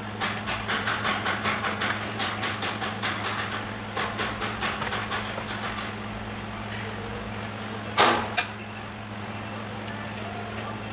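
Rapid, evenly spaced metallic clicking, about four clicks a second, in two runs over the first six seconds, then a single sharp knock with a quick lighter second one about eight seconds in, over a steady low hum.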